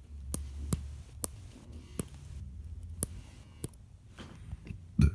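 About six sharp, irregularly spaced clicks over roughly four seconds, then a louder low thump near the end, with a low hum under the start.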